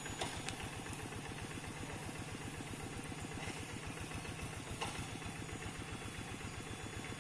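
Single-cylinder diesel engine of a two-wheel hand tractor running steadily with an even firing beat.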